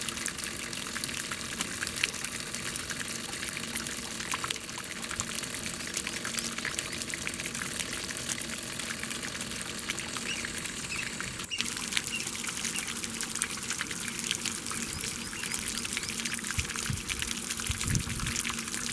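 Water splashing and pouring continuously, full of small droplet splashes, with a momentary break about halfway through.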